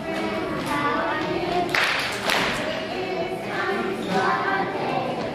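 Young children singing together as a group, with a short burst of noise about two seconds in.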